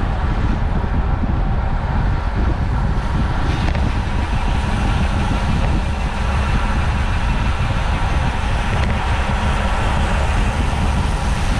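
Steady, loud wind rumble buffeting a bike-mounted camera's microphone as a road bike rides at about 28 mph in a racing pack.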